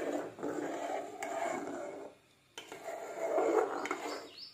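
Steel spoon stirring milk and kheer mix in a steel pot, scraping against the pot, in two stretches with a short pause about two seconds in.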